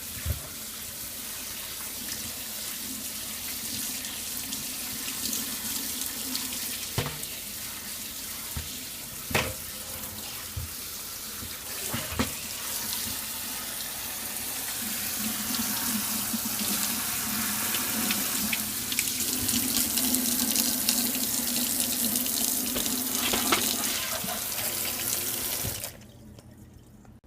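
Kitchen tap running into a sink as the plastic shell of a keyboard is rinsed under the stream, getting louder partway through. There are a few sharp knocks of plastic, and the water is turned off suddenly near the end.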